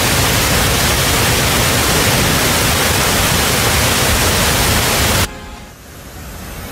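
Floodwater pouring over a weir: a loud, steady rush of water that cuts off suddenly about five seconds in, after which a quieter rush of water swells up.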